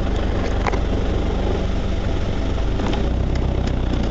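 An off-road 4x4's engine running steadily with a deep hum while driving slowly over a rough dirt track, with a few short knocks and rattles from the bodywork and load.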